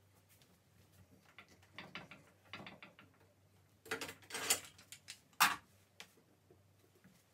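Metal parts of a bookbinding glue-binding clamp clicking and rattling as it is adjusted by hand. There is a burst of clattering about four seconds in and a single sharp clack, the loudest sound, about a second later.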